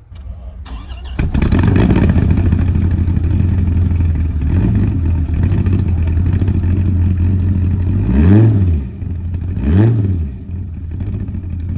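Car engine, plausibly the owner's single-turbo Nissan 350Z, comes in suddenly about a second in and runs steadily. It is blipped twice, the pitch rising and falling quickly each time.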